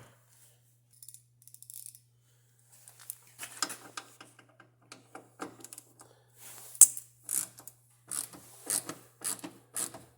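Hand ratchet clicking in short repeated strokes, about two a second, with one sharper click partway through, as the Torx fasteners of the door handle are worked.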